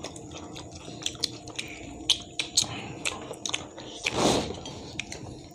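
People chewing fried fish, with irregular wet mouth clicks and smacks. A louder breathy rush comes about four seconds in.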